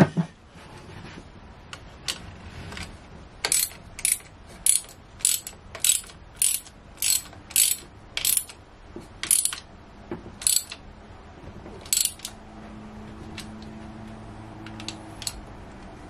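Socket ratchet wrench clicking in short strokes, about two a second for several seconds, then slowing to a few spaced strokes and stopping, as a bolt is tightened after the drive belt is set in place.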